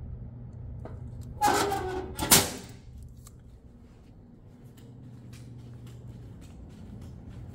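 Steel door of a Cutler-Hammer breaker panel swung shut: a scraping rasp of about a second that ends in a sharp metallic clank. A steady low hum runs underneath.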